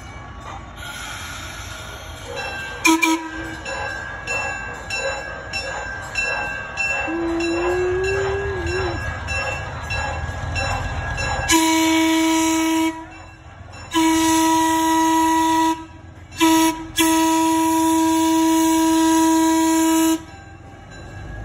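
Diesel switcher locomotive running with a low rumble and a knock, then sounding its horn in four blasts: long, long, short, long, the grade-crossing signal.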